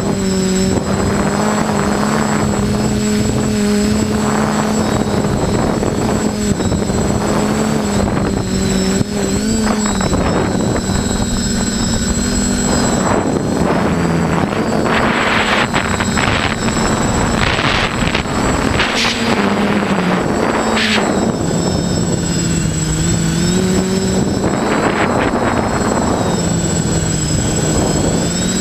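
Remote-controlled drone's electric motors and propellers running in flight, heard from the drone's own camera: a steady hum whose pitch dips and rises with the throttle. Louder rushing bursts come in repeatedly through the middle and again near the end.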